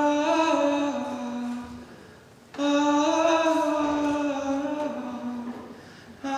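A man singing unaccompanied into a microphone in long, held notes: two slow phrases, the second starting after a short break about two and a half seconds in, and a third beginning at the very end.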